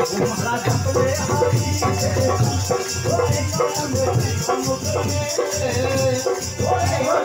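Live devotional bhajan music: a man singing through a microphone over rattling, shaker-like percussion that keeps a fast, steady beat.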